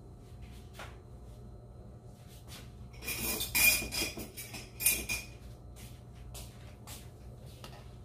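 Kitchen utensils handled: a few light clicks, then a spoon scraping and clinking against dishware for about two seconds, with a squeaky edge, starting about three seconds in.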